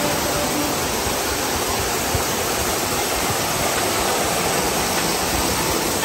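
Steady rush of a tall waterfall, its water falling onto rock, mixed with shallow water running over stones.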